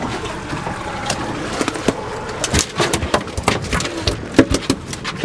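Scattered sharp knocks and thumps on a fiberglass boat deck, over a steady hiss of wind and sea.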